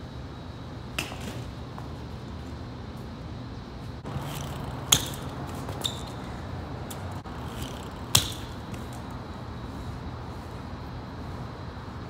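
BMX bike clattering on pavement during trick attempts: a few sharp metallic clacks, each with a short ringing tail, the loudest about five and eight seconds in.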